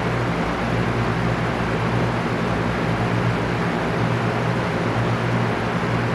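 Electric fan running steadily: an even rush of moving air over a constant low motor hum.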